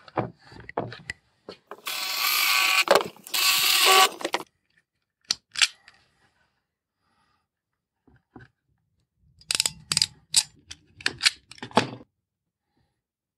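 Hands fitting a mains cable and small terminal parts into a plastic electrical junction box: a loud scraping rustle lasting a couple of seconds, then scattered clicks, and near the end a quick series of sharp plastic clicks and knocks.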